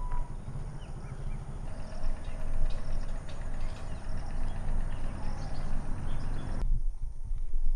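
Footsteps on a dirt path over a low rumble, with birds chirping faintly; the background changes suddenly near the end.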